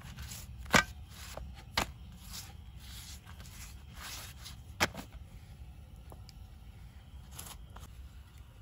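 Wooden spatula spreading butter over stacked flatbreads, in soft scraping strokes, with three sharp clicks about one, two and five seconds in.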